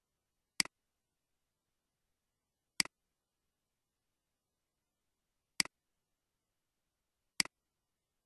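Four computer mouse clicks, each a quick double tick of press and release, spaced about two to three seconds apart with dead silence between them.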